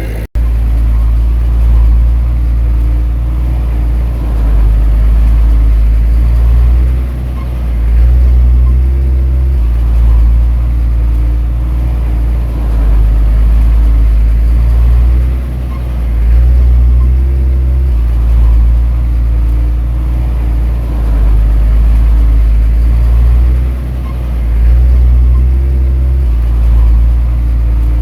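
Heavy diesel earthmoving machinery working, its engine running loud and low and swelling and easing every few seconds under changing load.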